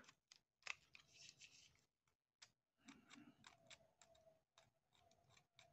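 Faint scattered clicks and light scraping of plastic and metal parts as a partly dismantled Minolta 460TX compact camera is handled.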